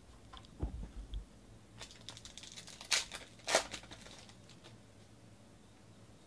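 A foil trading-card pack being torn open by hand: the wrapper crinkles and rips, with two sharp tears about three and three and a half seconds in. A few low thumps of handling come just before.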